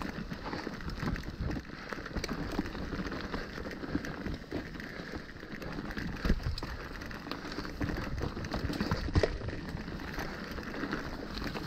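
Mountain bike riding down a rocky trail: tyres crunching over loose stones and gravel and the bike rattling, with hard knocks about six and nine seconds in.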